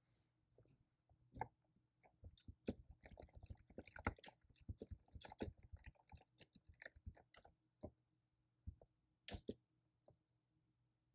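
Typing on a computer keyboard: quick, irregular key clicks, a flurry of several seconds, then a few scattered taps near the end.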